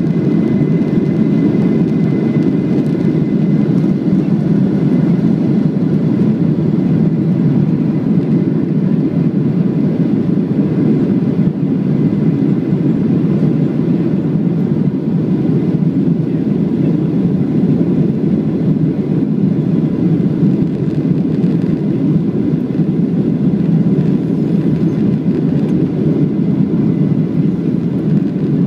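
Boeing 737-800 at takeoff thrust heard from a cabin seat over the wing: its CFM56-7B engines and the airflow make a steady, low-pitched rush through lift-off and the climb, with a faint thin whine above it.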